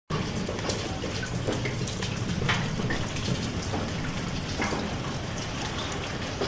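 Rain falling steadily, with single drops splashing here and there; it cuts off suddenly near the end.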